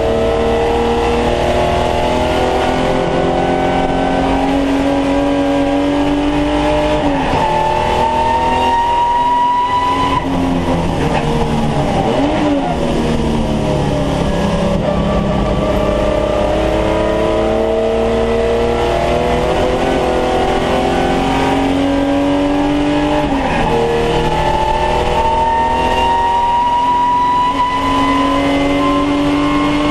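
Holden VT Commodore saloon race car's V6 engine heard from inside the cabin, pulling hard with the revs climbing steadily through each gear. The revs drop sharply at upshifts about seven seconds and twenty-three seconds in. Around ten to thirteen seconds in they fall away under braking, with a short blip on the downshift.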